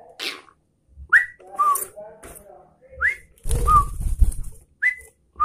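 Sooty-headed bulbul (trucukan) calling: short clear whistled notes in pairs, a quick rising note followed by a lower one, repeated about three times. A brief burst of rustling noise comes midway.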